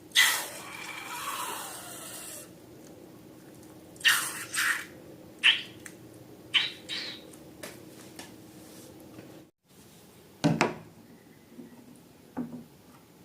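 Handling noises from slime-making: a run of short squishing and squeezing sounds, with a louder knock about ten seconds in.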